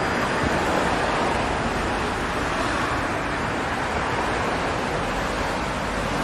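Steady traffic noise of cars driving past on a city street: an even hiss that holds without distinct passes or horns.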